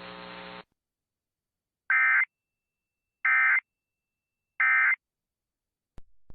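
Emergency Alert System end-of-message data tones: three identical short bursts of warbling digital data, spaced a little over a second apart, signalling the end of the alert. Before them a steady electrical hum cuts off abruptly.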